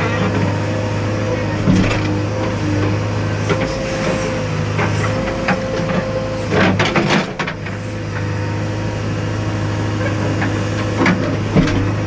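JCB backhoe loader's diesel engine running steadily under load, with a steady whine over the low drone, and clanks and knocks from the working machine, loudest about six and a half to seven and a half seconds in and again near the end.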